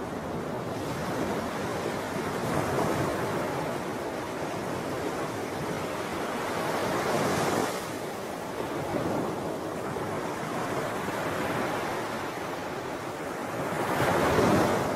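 Wind and lapping water on an open lagoon: a steady rushing noise with wind on the microphone, swelling in three gusts, the strongest near the end.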